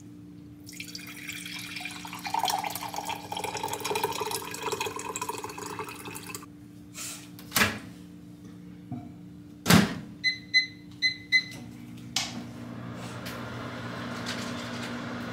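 Water running into a container for about five seconds, its pitch rising as it fills. Then two knocks, four short electronic beeps from a kitchen appliance's keypad, and a steady hiss as the appliance starts running, over a constant low hum.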